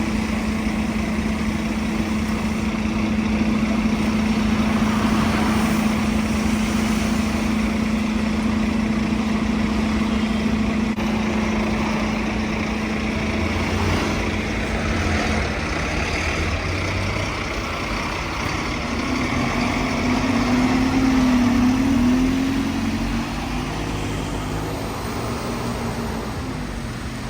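Buses running in street traffic: a steady engine hum that ends about halfway through, then another bus passing with a wavering whine, loudest about three quarters of the way in.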